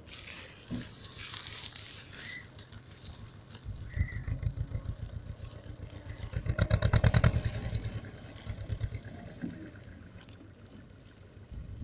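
Farm tractor's diesel engine running with an even low throb. It revs up and grows loudest about six to seven seconds in, then settles back.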